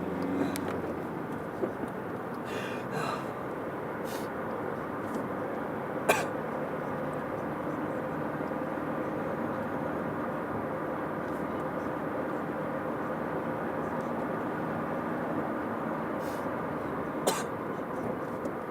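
Steady road and engine noise inside a moving car's cabin, with a few short sharp sounds, the clearest about six seconds in and another near the end.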